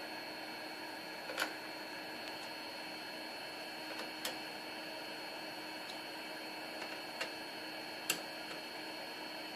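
Steady low hum and hiss with a few light, sharp clicks and taps spread through it, the sharpest near the end, as of computer hardware being handled.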